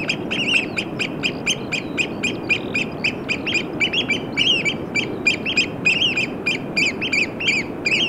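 Oystercatcher piping: a long, rapid run of sharp, down-slurred calls, about four a second, over a steady low rushing background.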